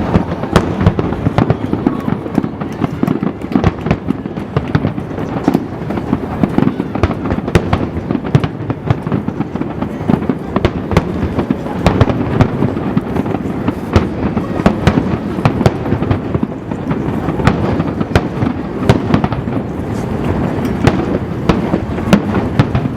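Fireworks exploding in quick, dense succession, many bangs and crackles overlapping into a continuous rumble.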